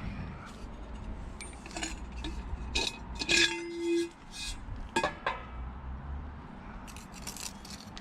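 Scattered light metallic clinks and knocks from metal G-clamps and tools being handled, one knock followed by a brief ringing tone.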